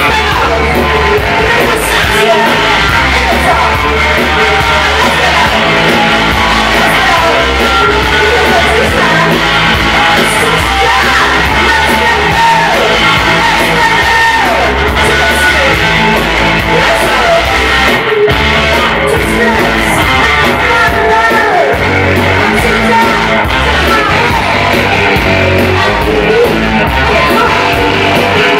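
Live rock band playing: a woman sings into a microphone over electric guitar and bass guitar.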